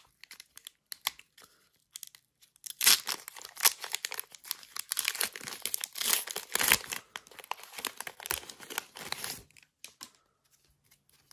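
Crinkly foil wrapper of a Pokémon trading-card booster pack being torn open by hand: a few light crinkles at first, then a dense crackling tear of the wrapper from about three seconds in until nearly ten seconds in.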